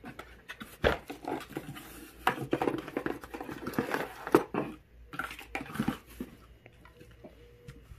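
Small cardboard box and its contents being handled: items lifted out and set down, with rustling and scattered light knocks and clicks that thin out after about six seconds.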